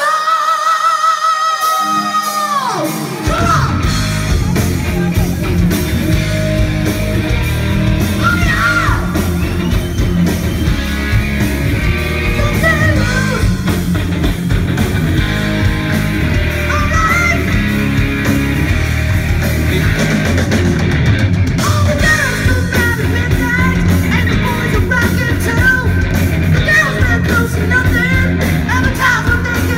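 Live rock band: a singer holds one long, wavering note alone, then about three seconds in drums, bass and electric guitar come in and the band plays on loudly with singing over it.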